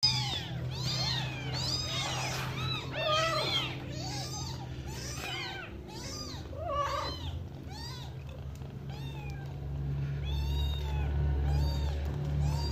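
Newborn kittens and their calico mother cat meowing: many short, high cries that rise and fall, often overlapping. The calls come thick at first and thin out and grow fainter in the second half.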